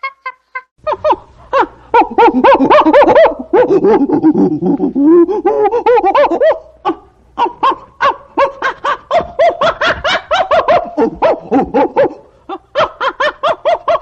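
Chimpanzee calling: a long run of rapid, pitched hoots and panting cries, about four or five a second, rising and falling in pitch, after a brief monkey call at the very start.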